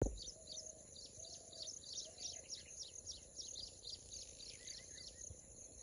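Wild birds chirping, quick downward-sweeping calls several times a second, over a steady high-pitched drone.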